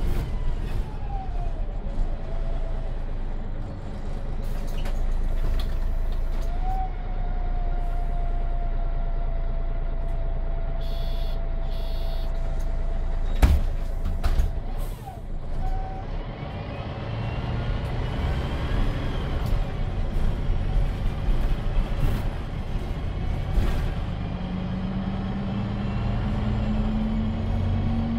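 Inside a MAN NG313 articulated city bus with a MAN D2866 LUH24 diesel and Voith D864.3E automatic gearbox: the bus runs, stands at a stop with short air hisses and one sharp thump about halfway through, then pulls away with the engine and gearbox pitch rising near the end.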